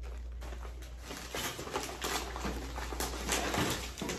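Crumpled kraft packing paper rustling and crinkling as a hand digs into a cardboard shipping box, in a dense run of irregular crackles.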